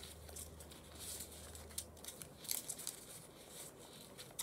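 Faint rustling and crinkling of a thin paper strip being folded and creased by hand, with a few light clicks.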